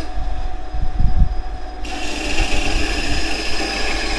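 Benchtop band saw running steadily while its blade cuts through a thick block of wood. A hiss of the blade in the wood comes in sharply about two seconds in.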